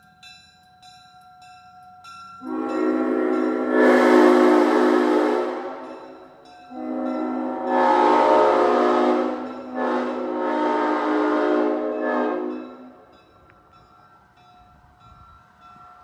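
A 1953 ex-Norfolk & Western Leslie S5T five-chime train horn with bronze bells, mounted on a pickup truck, blowing its chord in long blasts. One blast of about three and a half seconds, then after a short break a longer one that dips briefly in the middle. Fainter held chime tones come before and after the blasts.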